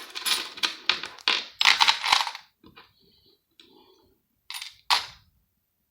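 Small pieces of scrap metal clinking and clattering together as they are handled and tipped out for weighing: a quick run of rattles in the first two seconds, then a few light taps and two more clinks near the end.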